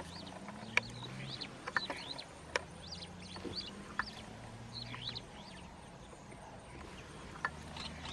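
Birds chirping over and over in short, high, arching calls, with a few sharp clicks and a low steady hum underneath.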